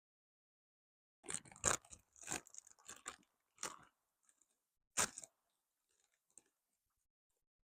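Crunching, as of something crisp being chewed: a quick cluster of irregular crunches, then two single crunches a little apart, fading to a few faint ticks.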